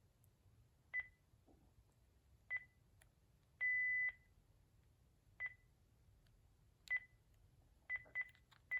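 Cordless phone handset key beeps as buttons are pressed to move through its menu. Short single high beeps come every second or so, with one longer beep about three and a half seconds in and a quicker run of beeps near the end.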